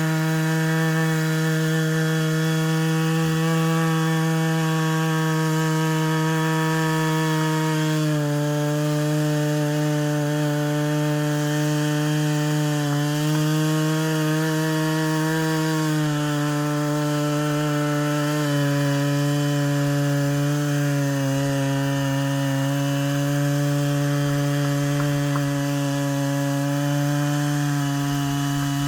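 Stihl MS 660 two-stroke chainsaw running steadily at high revs under load, ripping lengthwise through a Western red cedar log in an Alaskan chainsaw mill. Its pitch sags slightly a few times and steps down a little about two-thirds of the way through as the cut loads the engine.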